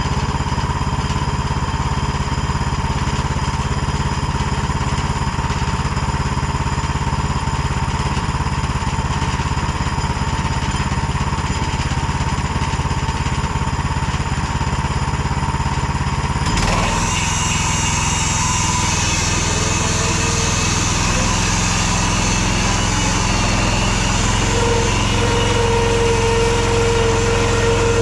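Predator 20 hp gasoline engine running steadily, driving a Woodland Mills HM126 band sawmill through a log. About two-thirds of the way through, the sound changes suddenly to a harsher running with more hiss, and a high whine comes and goes near the end.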